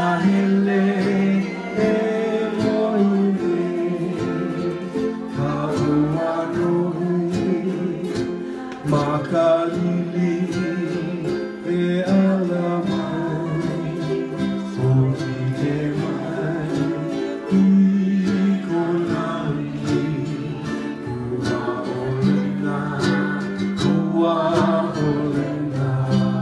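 A group of ukuleles strummed together in rhythm, with voices singing along.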